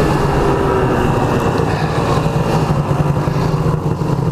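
Ski-Doo snowmobile's two-stroke engine running at a steady pitch while the sled is ridden along.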